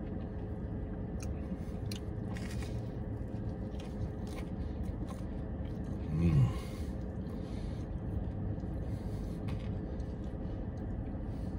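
A man chewing a mouthful of grilled cheese sandwich, with faint wet mouth clicks and a short hummed "mm" a little over halfway through, over a steady low hum.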